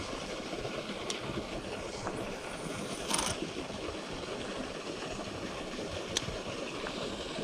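Fast river current and a small spill of water rushing steadily, with a brief sharp noise about three seconds in.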